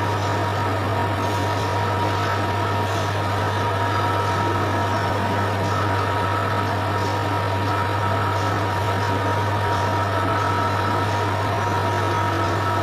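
TIG welding on stainless steel: a steady electric buzzing hum with an even hiss and a faint constant whine, running without a break.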